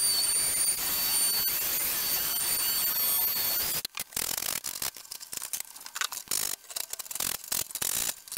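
Cordless oscillating multi-tool cutting through a plastic tub-surround panel: a steady buzzing cut with a thin high whine. It cuts off abruptly about four seconds in, followed by a run of irregular short clicks.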